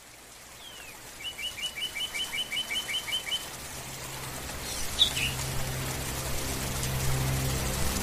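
Steady rain hiss fading in and growing louder, with a bird giving a quick run of about ten identical chirps from about one to three seconds in and another short call about five seconds in. From about halfway a low steady hum joins the rain.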